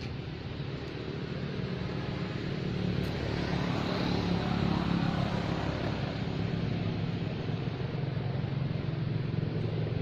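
An engine running steadily, growing louder toward the middle.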